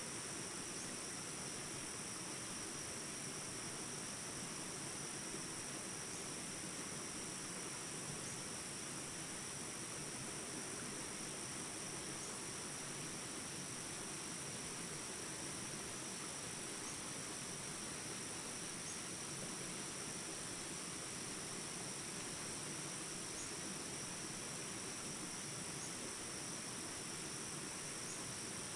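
Steady chorus of insects making a continuous high-pitched drone over the even rush of small rapids, with faint short chirps now and then.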